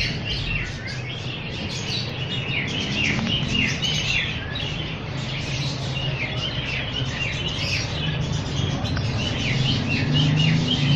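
Many small birds chirping continuously, a dense chorus of quick, repeated falling chirps, over a low steady hum.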